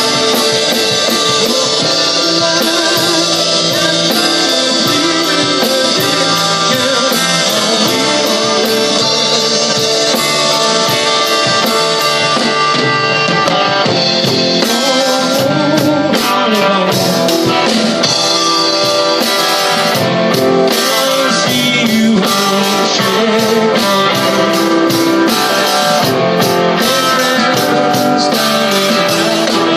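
Live rock band playing: electric guitars, bass guitar and drum kit, with a man singing lead.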